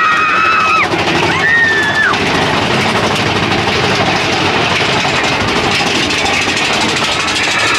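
Mine-train roller coaster running along its track: a steady rumble of the wheels and rushing air. There are two riders' shouts in the first two seconds.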